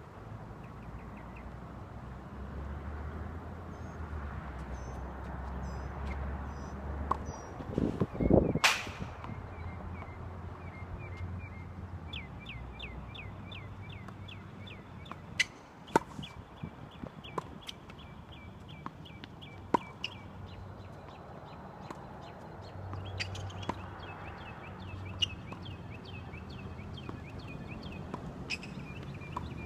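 Tennis ball being hit by rackets and bouncing on a hard court during a rally: sharp pops, several in quick succession about halfway through and a few more near the end, with a louder knock about eight seconds in. Small birds chirp in fast repeated runs throughout, over a low steady rumble.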